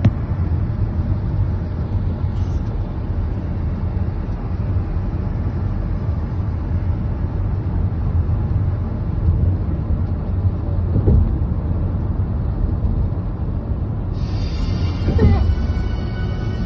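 Steady low road and engine rumble heard from inside a moving vehicle, with two brief rising whines about eleven and fifteen seconds in.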